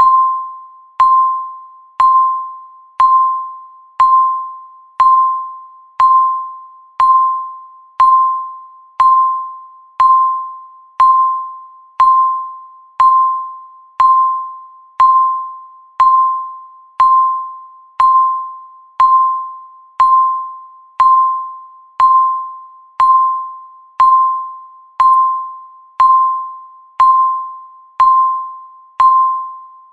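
Countdown timer's electronic tick sound: a short, sharp ping with a ringing mid-pitched tone, repeated exactly once every second and fading quickly after each strike.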